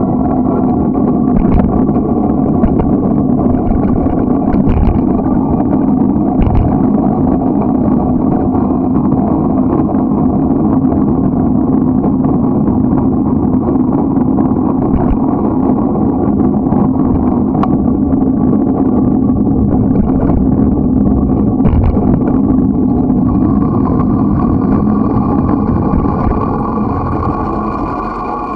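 Wind buffeting the microphone of a bicycle-mounted camera, with the tyres rolling on asphalt: a loud, steady rush with a few short clicks from bumps. It eases off near the end as the bike slows.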